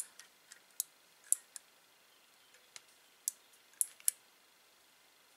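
Short, sharp metal-on-metal clicks and taps, about eight of them at irregular intervals, from a motorcycle brake lever and master cylinder being handled and fitted together by hand. The loudest come about a second in and near four seconds in.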